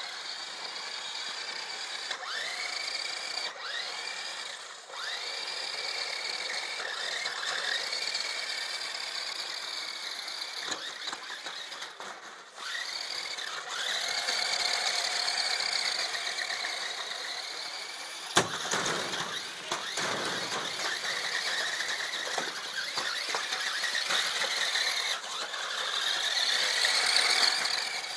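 Electric motors of a toy RC stunt car whining as it drives, the pitch rising again and again as it speeds up, with a sharp click about two-thirds of the way through.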